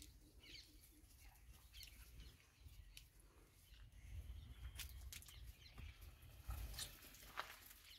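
Near silence: a few faint, short, high chirps and soft clicks over a low rumble.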